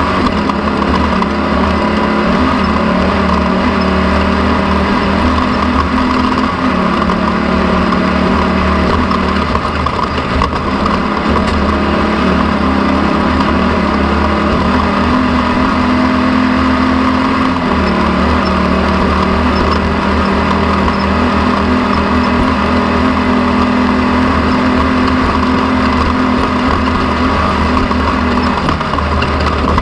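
An engine running steadily at a constant working speed, its pitch shifting slightly a few times.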